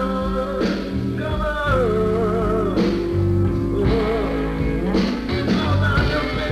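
Rock band playing on a 1977 demo recording: a wavering lead melody with vibrato over steady bass notes, with accents about once a second.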